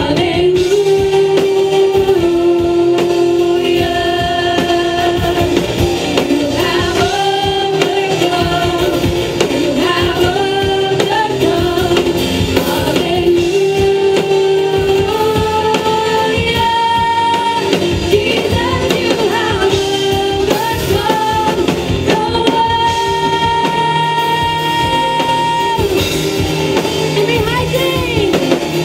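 Women singing a praise and worship song into microphones, with acoustic guitar accompaniment and long held sung notes.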